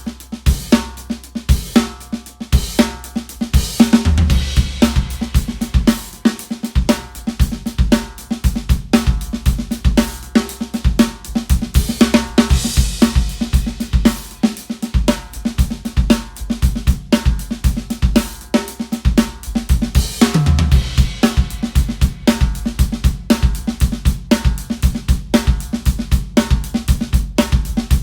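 DW drum kit played in a steady groove on kick, snare, hi-hat and cymbals, the drums tuned to the resonant frequency of their shells. Heavier low tom hits come about four seconds in and again around twenty seconds, with a cymbal wash in between.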